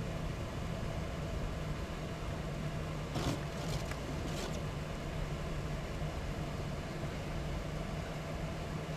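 A vehicle driving on a snowy road, heard from inside the cab: a steady engine and road hum. About three to four and a half seconds in come a few brief swishes as the windshield wiper sweeps across the glass.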